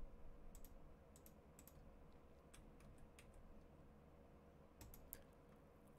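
A few faint, irregular computer mouse and keyboard clicks against quiet room tone with a faint steady hum.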